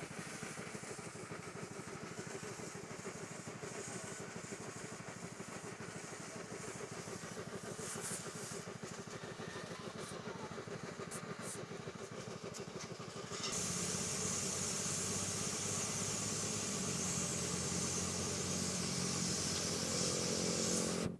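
A small motor running steadily with a fast, even pulse. About 13 seconds in, the sound steps up suddenly louder and a strong hiss joins it.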